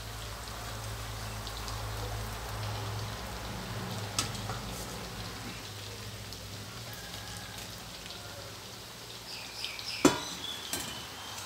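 Isan fermented pork sausages deep-frying in a wok of hot oil: a steady, fine sizzle, with the sausage skins starting to split. A small click about four seconds in and a sharp, loud knock near the end.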